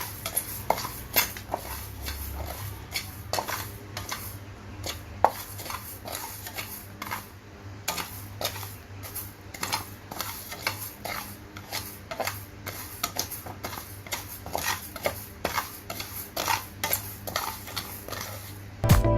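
A utensil clinking and scraping against a pot or bowl as food is stirred or mixed, with irregular sharp clicks a few times a second.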